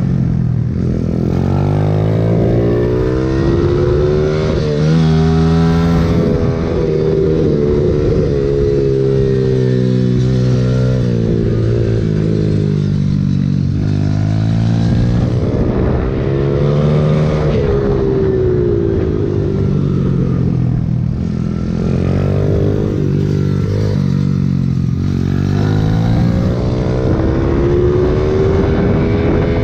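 Pit bike engine under hard throttle on a lap of a track. Its pitch climbs as the rider accelerates out of each corner, then falls as he backs off for the next, about every three to five seconds.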